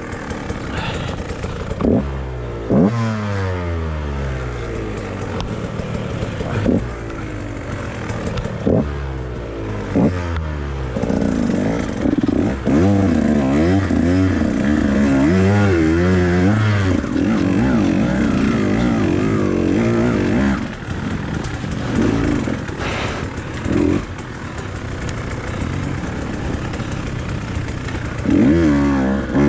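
Two-stroke enduro dirt bike engine revving in repeated rising sweeps as the throttle is worked. It is held higher and louder for several seconds in the middle, then eases off.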